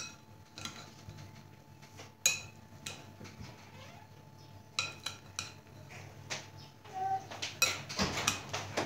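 Metal spoon clinking and scraping against a glass bowl while stirring a chickpea-and-yogurt chaat mixture. The clinks are irregular and come more often near the end.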